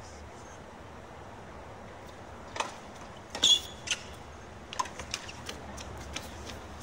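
Tennis rally on a hard court: a few sharp racket-on-ball hits and a brief shoe squeak about halfway through, then scattered handclapping from a small crowd as the match point is won.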